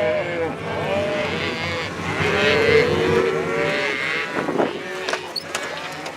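A herd of cattle mooing, many calls overlapping and thinning out after about four seconds; the cows are calling for more feed from the feeder truck. A steady low hum of an idling pickup engine runs underneath.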